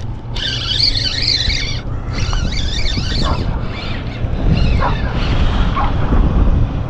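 A puppy whining in high-pitched, wavering squeals: two long squeals in the first three seconds, then several short rising whimpers. Wind rumbles on the microphone throughout.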